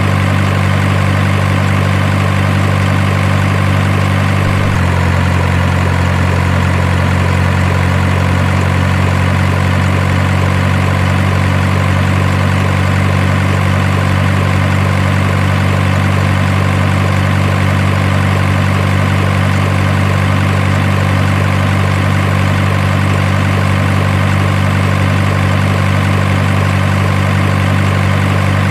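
Truck engine idling sound, loud, low and perfectly steady, with an abrupt slight change in its pitch about five seconds in.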